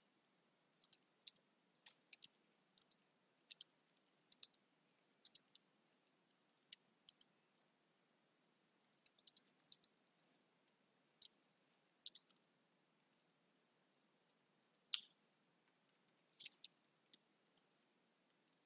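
Computer keyboard keys clicking as text is typed, singly and in quick runs of two or three at uneven intervals, with near silence in between.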